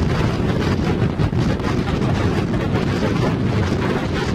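Storm wind buffeting the microphone in a loud, steady low rumble, with heavy surf breaking on the rocky shore beneath it.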